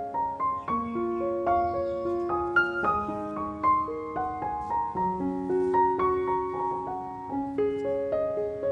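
Background piano music: a gentle melody of held notes over chords, at an unhurried pace.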